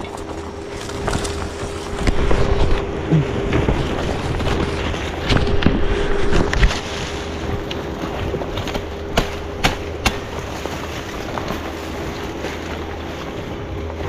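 Wind noise and rustling on the microphone under a steady low hum, with a few sharp clicks or knocks near the middle.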